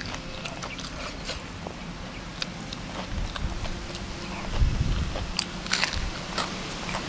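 Close eating sounds: biting into and chewing crispy fried battered shrimp (udang kremes), a run of short crunches and mouth clicks. A dull thump comes about four and a half seconds in, followed by the loudest crunching.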